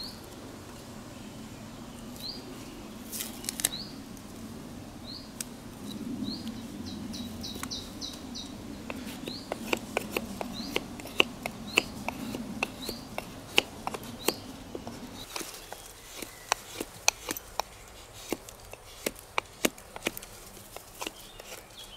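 Knife carving a small wooden cord spindle against a log: a run of sharp clicks and cracks as the blade bites into the wood and splits off chips, thicker and louder in the second half. A bird repeats short rising chirps through the first half.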